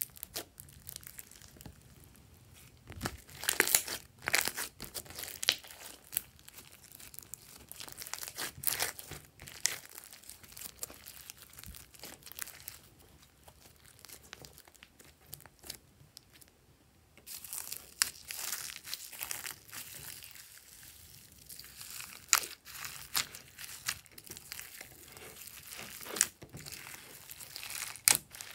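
Hands kneading, pressing and stretching a large batch of yellow slime: irregular sticky crackles, clicks and tearing sounds, with a quieter pause about two thirds of the way through.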